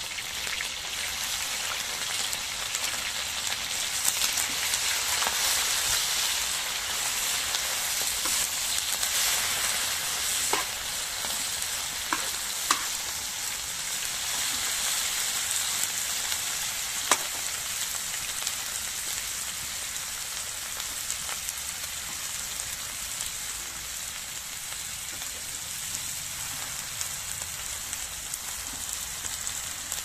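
Food sizzling in a sac tava pan: a steady frying hiss with a few sharp pops.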